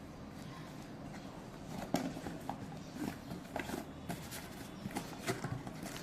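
Handling noises from unboxing: irregular light clicks and knocks, starting about two seconds in, over a steady low background hum.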